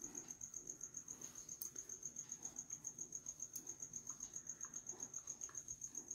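Faint, steady, high-pitched chirping trill, pulsing about a dozen times a second, with soft rustling of cloth as a dog tugs at a fabric bundle.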